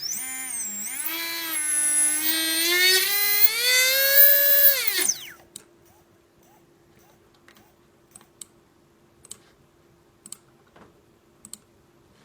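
Readytosky 1804 brushless motor spinning up under throttle. Its whine, full of overtones, wavers, rises in pitch and cuts off after about five seconds. The uploader says these motors have bad bearings and heavy vibration. A few faint clicks follow.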